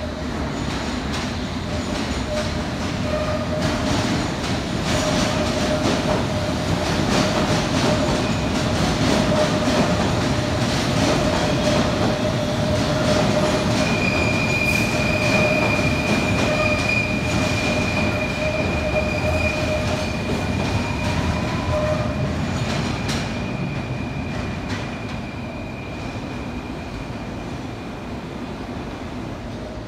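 London Underground S Stock train running out of the platform, its rumble swelling and then fading away. A high, steady wheel squeal starts about halfway through and dies away near the end.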